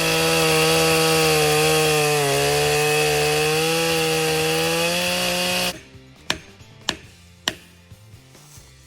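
Two-stroke Echo chainsaw at full throttle cutting through wood, its pitch sagging slightly under load about two seconds in. The saw drops off after about six seconds, and three sharp knocks follow about half a second apart.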